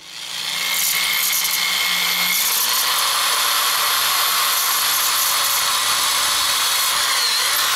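Electric drill running steadily with a 1/8-inch bit cutting a hole through a thin metal antenna element tube held in a vise. It starts right at the beginning and holds at a steady pitch and level throughout.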